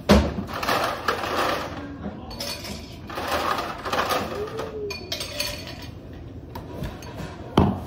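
Rummaging in a refrigerator's freezer compartment: items shifted and rustled, with glass clinking as a stemmed glass is taken out. A sharp knock at the start and another near the end.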